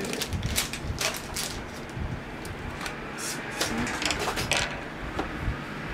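Handling noise as a plastic bag and a cloth are moved about and spread on a desktop: several short rustles and crinkles at irregular intervals.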